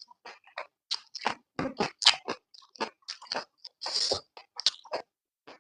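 Close-up mouth sounds of a person chewing Chapagetti noodles and green onion kimchi: a quick, irregular run of wet smacks and crunches, with one longer noisy sound about four seconds in.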